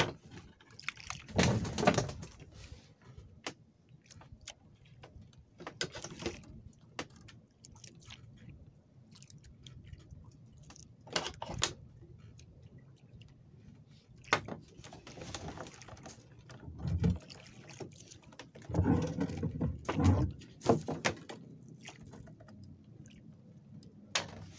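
Scattered knocks and rustles from baiting a hook with squid strips by hand on a small boat's wooden deck, several short handling noises with quiet gaps between them.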